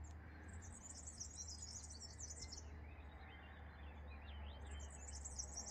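A small songbird singing two bouts of rapid, high twittering, each about two seconds long, with a short gap between. A faint steady low hum runs underneath.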